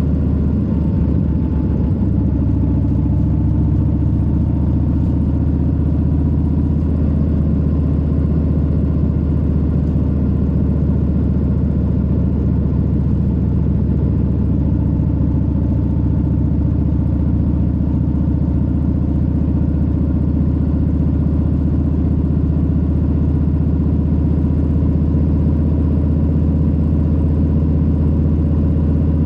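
Harley-Davidson Low Rider S's Milwaukee-Eight 117 V-twin engine running steadily at an even speed, a deep low rumble with no rev changes.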